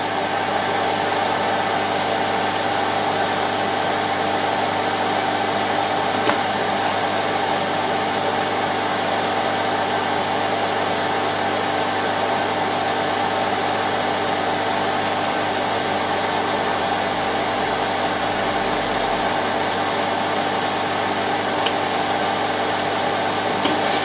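Soldering fume extractor fan running steadily: an even whirring hum with a clear tone in it. A few faint clicks over it.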